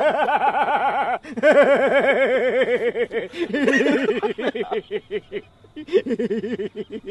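Men laughing out loud in long runs of quick, rhythmic ha-ha pulses, with short breaks about a second, three seconds and five and a half seconds in.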